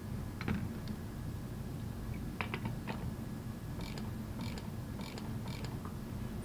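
Metal clinks of a socket and ratchet being handled and fitted, then a hand ratchet clicking in four short runs about half a second apart as it turns the centre nut holding the diaphragm outer plate of an air-operated double diaphragm pump.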